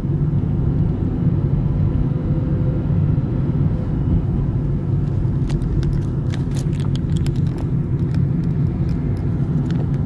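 Car engine and road noise heard inside the cabin as it climbs at low speed: a steady low rumble. From about halfway, a run of clicks and knocks from the camera being handled and turned.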